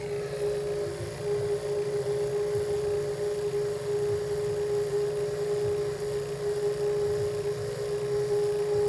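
Refrigerant vacuum pump running with a steady hum while it pulls an air-conditioning system down into deep vacuum, the micron reading falling.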